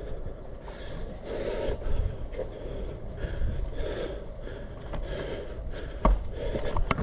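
Rustling and rubbing handling noise from the player's gear and camera as he moves, in uneven pulses over a low rumble, with a few sharp clicks near the end.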